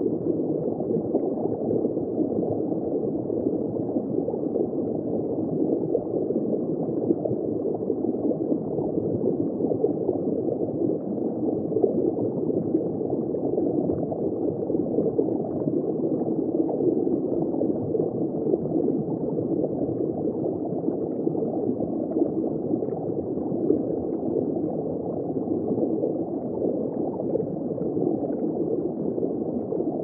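Underwater ambience: a steady, muffled rush of water noise with no tones and nothing high-pitched in it.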